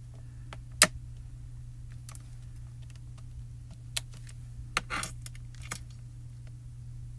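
Sharp clicks and taps of hard plastic stamping tools being handled on a stamping platform. One loud click comes about a second in and several lighter ones follow around four to six seconds in, over a steady low hum.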